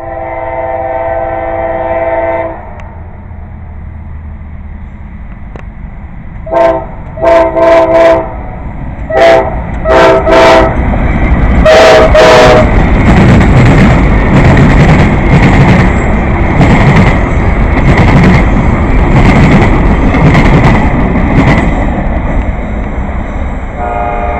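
Nathan K5LA five-chime horn on a CSX ES40DC locomotive, sounding a blast of about two seconds, then a string of short, sharp blasts. The train then passes close by with a loud, steady rumble and regular clatter. The horn sounds again right at the end.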